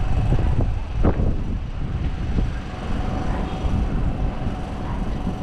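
Low, uneven rumble of wind on the microphone.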